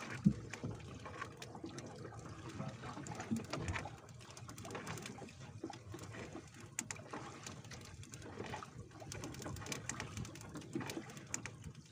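Water splashing and dripping, with irregular clicks and knocks, as a fishing net is worked in the water; one sharper knock just after the start.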